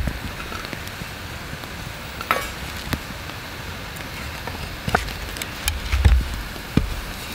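Sparse wooden clicks and knocks as the wooden frame sticks of a take-apart buck saw are handled and fitted together, with a low thump about six seconds in, over a steady low hiss and rumble.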